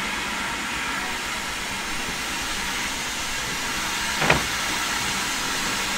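Steam train drawing to a stop at a platform, with a steady hiss of steam and one sharp knock about four seconds in.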